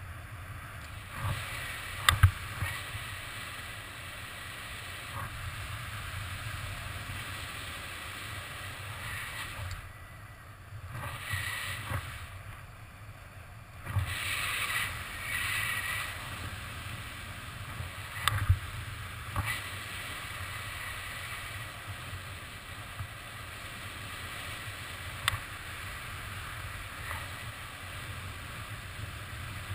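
Wind rushing over the camera's microphone in paraglider flight: a steady low rumble and hiss that swells now and then, with a few sharp knocks, the loudest about two seconds in.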